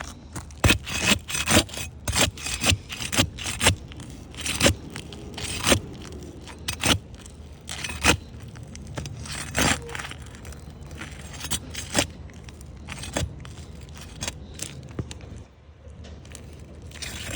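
Irregular scrapes and clicks of handling and movement on an asphalt shingle roof, several a second for about the first ten seconds, then sparser.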